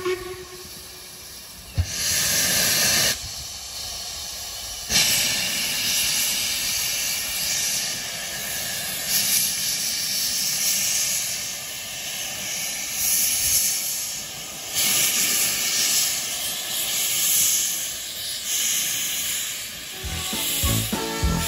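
Steam locomotive letting off steam: a loud hiss in a short burst, then a longer, steady, rising-and-falling hiss. Music comes in near the end.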